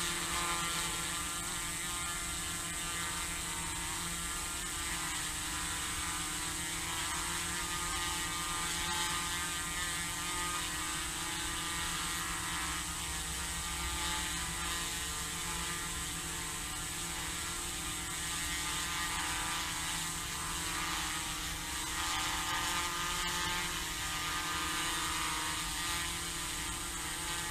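DJI Matrice 100 quadcopter hovering, its four rotors giving a steady, many-toned buzz.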